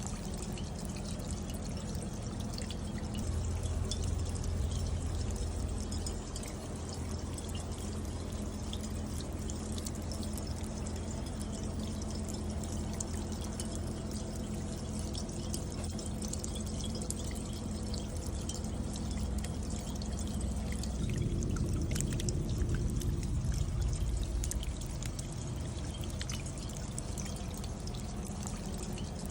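Rainwater pouring and trickling down a copper bucket rain chain, with scattered drips ticking on the copper cups. The flow swells louder twice: a few seconds in, and again past the middle.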